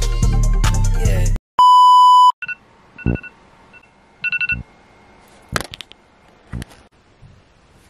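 Music cuts off about a second and a half in, followed by a loud steady beep lasting under a second. Then a smartphone alarm sounds short, quiet beeps in a few groups, and two sharp taps follow as it is dismissed.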